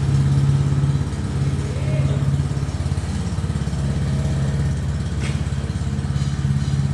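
Honda GX petrol engine running steadily at an even pitch, just started and powering a coconut-milk extractor machine.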